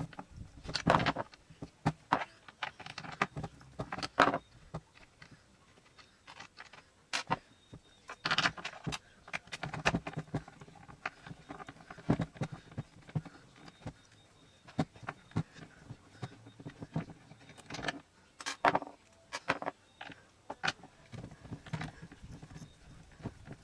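Skateboard truck nuts and bolts being undone with hand tools: irregular metallic clicks, clinks and sharp knocks, with pauses between them.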